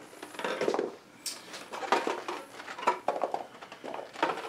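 Boxed Eaglemoss Scimitar starship model being shaken, with loose pieces rattling and clattering irregularly inside the box. The rattle is the sign of a model broken in shipping: a large section has snapped clean off.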